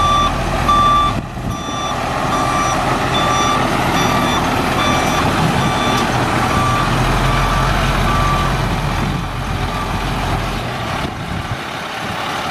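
Reverse-alarm beeper on a 1996 International stake-bed truck beeping evenly, just under two beeps a second, as the truck backs up with its diesel engine running. The beeping stops about two-thirds of the way through, leaving the engine running.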